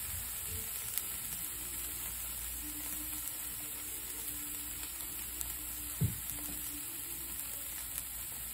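Slices of queso fresco sizzling steadily in an oiled frying pan, with one short knock about six seconds in.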